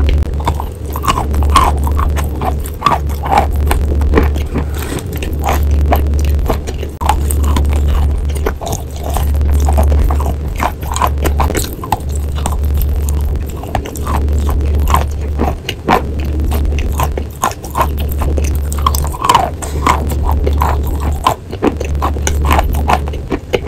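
Close-up biting and chewing of a soft, wet chalk block: short crunches, scrapes and wet mouth clicks one after another. Under it runs a loud low hum that throbs on and off every second or two.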